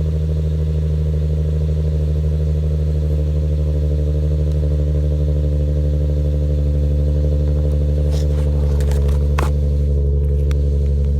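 2008 Infiniti G35x's V6 idling steadily through an aftermarket Pro-1 exhaust after a cold start, the note holding one pitch. A few faint ticks come near the end.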